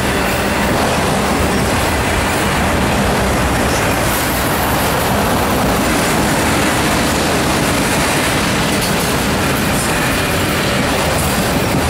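Enclosed autorack freight cars rolling past close by: a steady, loud rumble of steel wheels on the rails.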